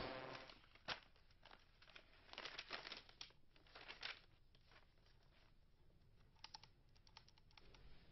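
Music fading out in the first half second, then faint rustling and small taps of a paper strip being handled and slid across a wooden table, in scattered clusters of soft clicks.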